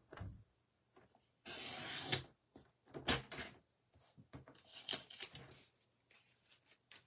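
Paper trimmer's sliding cutter drawn once down its track, slicing a strip off a sheet of designer paper: one scraping stroke of under a second. It is followed by light taps and rustles as the paper is shifted on the trimmer base.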